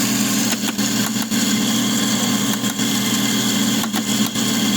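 Electric coffee grinder motor running steadily, grinding a dose of coffee beans, with a few light clicks.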